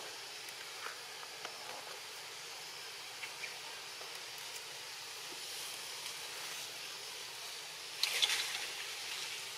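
Steady outdoor ambience, a constant high hiss with a few faint clicks; about eight seconds in, a louder rustle close by, lasting about a second.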